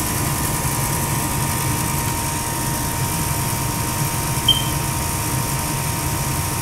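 Goodman GMP075-3 gas furnace running: its fans give a steady hum with a constant whine. A brief small squeak comes about four and a half seconds in.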